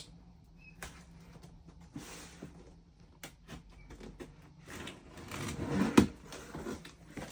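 Cardboard box being opened and its packaging handled: scattered clicks and rustling, then a louder scuffle about five seconds in with one sharp knock near six seconds.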